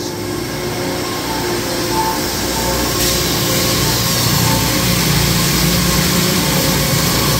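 PVC panel extrusion line running: a steady mechanical hum and whir of motors, fans and cooling pumps, a little louder about three seconds in.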